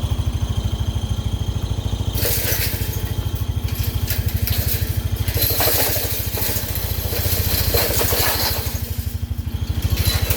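An engine idling steadily with an even, rapid beat. From about two seconds in until near the end, a rough, crunching hiss comes and goes over it.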